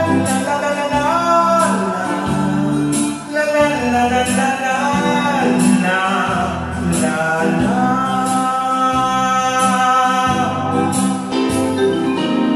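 A man singing a Vietnamese song over electronic keyboard accompaniment with a steady drum beat.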